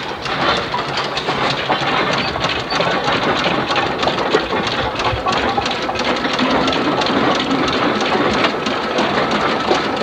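1913 John Fowler steam ploughing engine running under steam, its flywheel turning, with a loud, steady, busy clatter full of small clicks.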